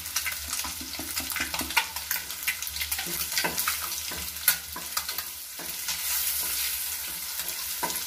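Onions and garlic frying in hot oil in a nonstick pan with freshly added ground spices, sizzling steadily while a spatula stirs them, with frequent sharp clicks and scrapes of the spatula against the pan.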